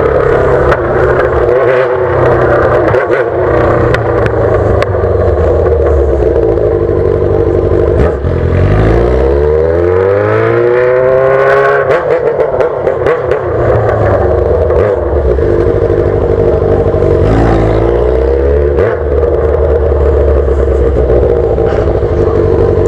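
Yamaha XJ6's 600 cc inline-four engine running loud through a straight pipe with no muffler while being ridden. The engine note holds fairly steady, then climbs steeply from about eight seconds in, breaks off near twelve seconds and drops back. A shorter rise follows near eighteen seconds.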